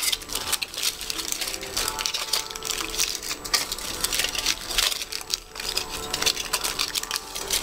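Crinkling and crackling of aluminium foil and a thin clear plastic sheet being handled, squeezed and wrapped by hand around a wire armature. Many small, irregular crackles throughout.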